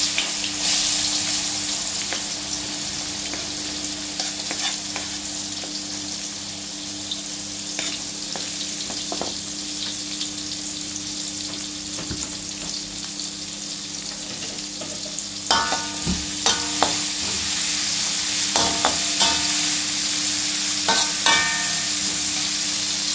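Sliced red onions sizzling in hot oil in a wok, a steady frying hiss. From about two-thirds of the way through, a metal spatula clinks and scrapes against the wok as the onions are stirred.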